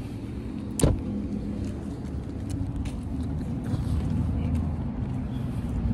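Steady low rumble of a car running, heard from inside the cabin, with a single sharp click about a second in.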